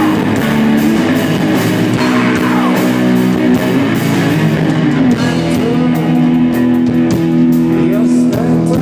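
Rock band playing live through stage amplifiers: electric guitars holding loud, sustained chords over drums.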